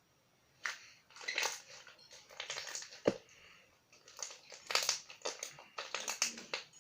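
Homemade slime squeezed and worked by hand, making irregular squishing and crackling sounds with a sharp pop about three seconds in.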